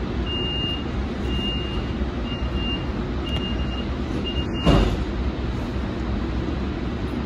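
Siemens light-rail vehicle running steadily along the track, heard from inside the driver's cab, its low rumble continuous. A high electronic beep sounds five times, about once a second, and stops at a single sharp knock a little past halfway.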